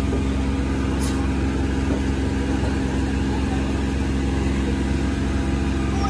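An engine running steadily, a constant low hum that does not rise or fall, with a short click about a second in.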